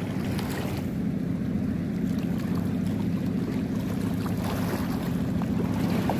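Small fishing boat's engine running steadily with a low hum, over water and wind noise as the boat moves.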